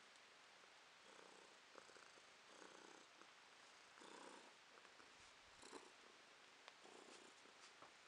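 Domestic cat purring faintly close up, the purr swelling and fading about every one and a half seconds with its breaths.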